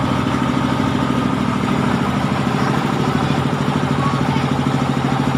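An engine idling steadily close by, a constant low pulsing hum.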